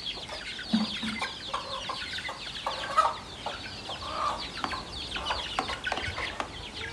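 A group of young chickens peeping nonstop, many short high calls sliding down in pitch, mixed with occasional lower clucks.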